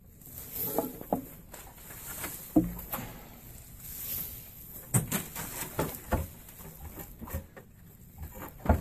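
Rope strands being handled during braiding: irregular rustling and swishing as strands are crossed over and pulled tight, with scattered light taps and knocks, one of them a dull thump.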